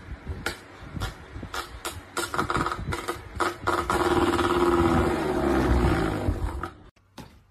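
A cat batting at a running pedestal fan: a run of quick clicks and taps, then a loud buzzing drone for about three seconds that sinks slightly in pitch and cuts off suddenly near the end.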